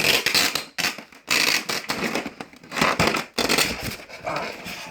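Packaging crackling and crunching in loud, irregular bursts as an airsoft rifle's stock is forced out of its tight-fitting box.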